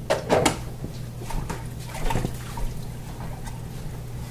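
Dishes being handled and washed at a kitchen sink, with water. A couple of sharp clinks come near the start, then scattered lighter knocks, over a steady low hum.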